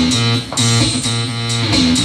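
Guitar-led music with a bass line, played loud through coaxial car speakers in a T-line box driven by a Joson Moon power amplifier.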